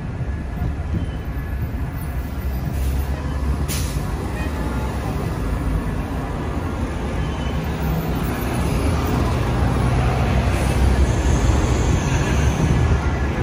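Traffic on a busy city street: motor vehicles, among them a city bus, running with a steady low rumble that grows louder in the second half. A short high hiss comes near the end.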